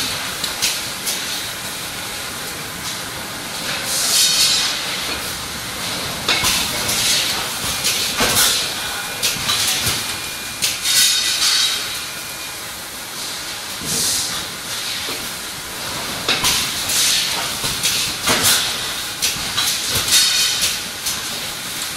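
HM 4000S servo cross-web labeller and its packaging line running: a steady mechanical hiss, broken every two to three seconds by short hissing surges and clicks as the machine cycles.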